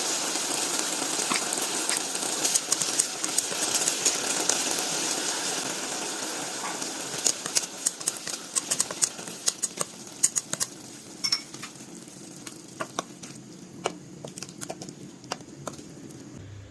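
Pork frying in a hot pan: a loud sizzle that slowly dies down, with sharp crackles and pops of spattering fat that grow sparser toward the end.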